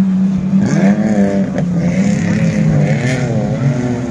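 Off-road 4x4 engine revving as it drives over a rough dirt course. The engine note rises and falls repeatedly under a steady engine drone.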